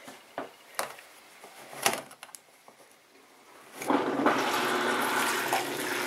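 A few short clicks as the wash-select dial of a Panda B45 portable washing machine is turned to drain. About four seconds in, the drain pump starts and wash water pours out of the drain hose into the sink: a steady rush of water over a low motor hum.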